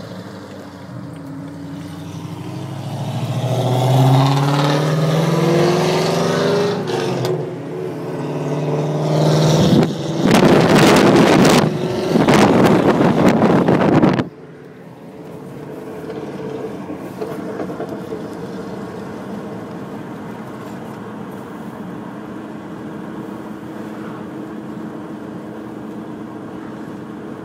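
Pontiac GTO's LS2 V8 through headers and a custom exhaust, accelerating hard with its pitch climbing, loudest with a harsh noisy rush about ten to fourteen seconds in. It cuts off abruptly, then settles to a steady cruising drone.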